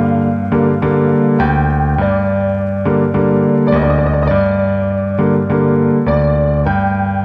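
Background music: keyboard or electric piano playing a steady run of chords.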